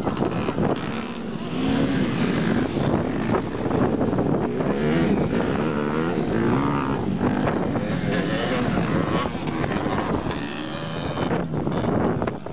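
Motocross dirt bike engines revving, more than one bike at once, the pitch rising and falling over and over as the throttles open and close.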